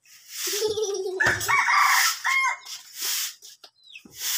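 A rooster crows once, a pitched call of about two seconds starting about half a second in. Around it come the rough, repeated swishes of a long grass broom sweeping bare concrete.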